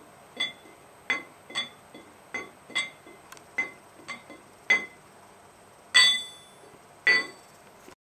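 Engine camshafts struck one hit at a time, about a dozen metallic clinks, each ringing briefly at a high pitch. The last two, about six and seven seconds in, are the loudest and ring longest. It is a ring test of the camshafts' metal: stiffer material gives a higher pitch and a longer ring.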